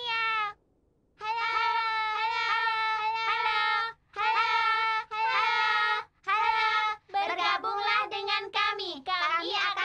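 Children singing a Christmas gospel song, holding long notes in phrases with short breaks between them, the notes growing shorter and choppier near the end.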